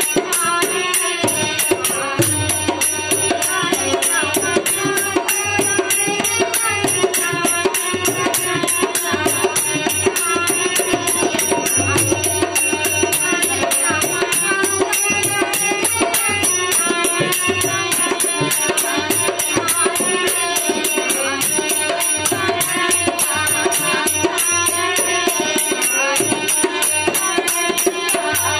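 Harmonium playing a Sawan folk song, with a woman singing along and a rattling, jingling percussion shaken in time.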